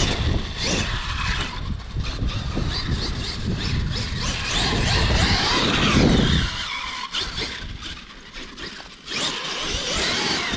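Traxxas X-Maxx electric RC monster truck driving on belted Sledgehammer tires: the brushless motor whines up and down with the throttle over the rumble and knocks of the tires and chassis on the ground. It eases off about seven seconds in and picks up again near the end.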